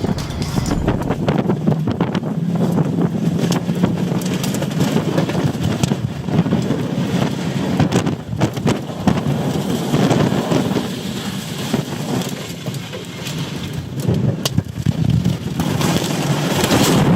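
Wind and heavy rain battering a moving vehicle in a severe storm, over a steady low engine hum, with scattered sharp hits on the body. The sound cuts off suddenly at the end as the camera stops recording.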